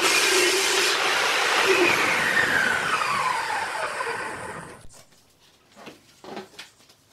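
Table saw finishing a cut through a sheet of MDF, then its blade coasting down after switch-off with a steadily falling whine. The whine cuts off about five seconds in, leaving a few faint knocks.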